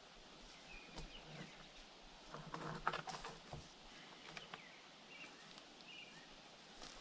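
Faint rustling, scuffing and light knocks of a log being handled and shifted, loudest in a short scrape about three seconds in, with a few short bird chirps.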